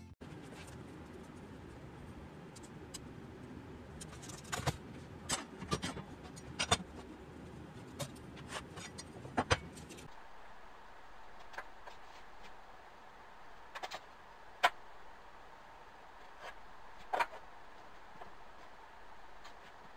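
Scattered light clicks and knocks from tools and boards being handled on a workbench, over a faint steady background hum. The clicks come in a busy cluster through the first half and are fewer and further apart after the hum drops out about halfway.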